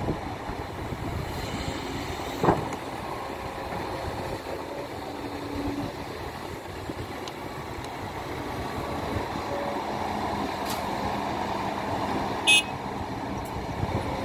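Hidromek 230LC excavator's diesel engine running steadily while working, with a single clank about two and a half seconds in and a short, sharp high-pitched sound near the end.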